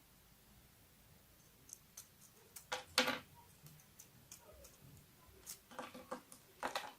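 Slime being handled by hand: irregular small sticky clicks and short crackles, the loudest burst about three seconds in and another cluster near the end.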